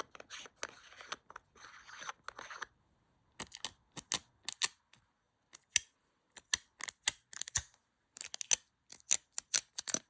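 A threaded lens filter being unscrewed with a light scraping, then a string of sharp sticky clicks that come faster towards the end as a strip of Scotch tape is dabbed on and pulled off the camera lens glass.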